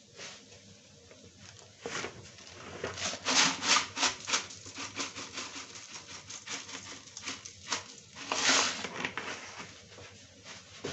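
Dry poha (flattened rice) flakes and peanuts poured into a metal kadhai, pattering and rustling as they land on the fried mixture and the pan. The pouring comes in bursts, heaviest around three to four seconds in and again about eight seconds in.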